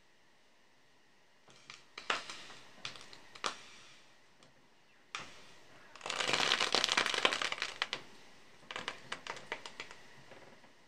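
Butter melting in a hot frying pan, sizzling and spitting in scattered sharp crackles. A dense burst of sizzling runs from about six to eight seconds in, as the block is pushed across the pan, then eases back to separate crackles.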